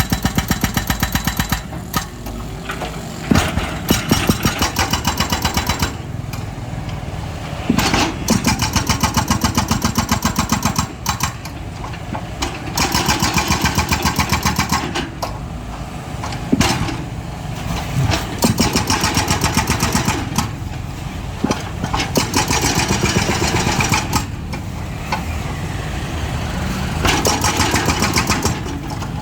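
Excavator's diesel engine running, growing louder for a few seconds at a time under hydraulic load and easing back in between, with a few sharp knocks.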